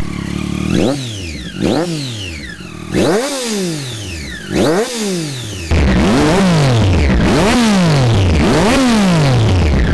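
A Triumph Daytona 675R's inline three-cylinder engine is revved repeatedly through an Austin Racing V3 titanium end can with its baffle removed. It gives a string of about eight sharp throttle blips, each rising quickly in pitch and falling back.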